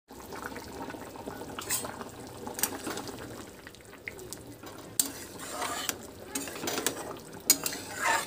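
Long metal spatula stirring a simmering potato curry in a stainless steel kadai, scraping and clinking against the pan now and then.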